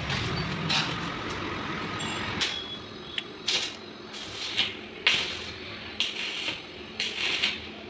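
Irregular short knocks and scrapes of metal being worked on a stainless steel square-pipe railing, about half a second to a second apart, after a low rumble in the first two seconds or so.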